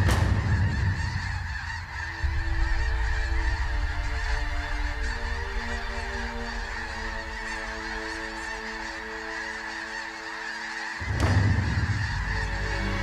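A huge flock of snow geese calling overhead: a dense, continuous din of overlapping honks.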